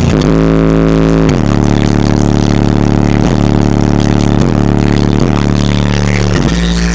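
Two 15-inch Kicker L7 subwoofers, driven by 2000 watts RMS, play loud, deep, sustained bass notes that step to a new pitch about once a second, as in a heavy bass line.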